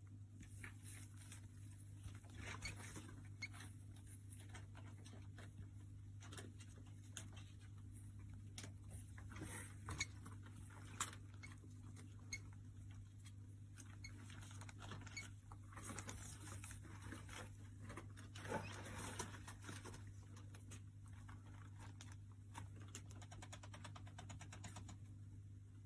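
Faint scattered scratching and tapping of a pet rat moving about, with a few sharper clicks, over a steady low hum.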